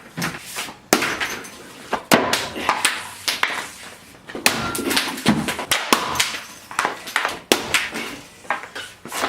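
A string of sharp knocks and cracks at irregular intervals, with scraping in between: hockey pucks shot with sticks and hitting a laptop.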